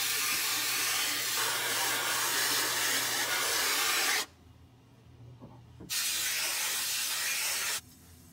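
Hand-held hose spray nozzle jetting water onto a silk screen frame in a washout sink: a loud, even hiss that stops about four seconds in, starts again a second and a half later and cuts off near the end. The screen is being washed out so the stencil design shows through.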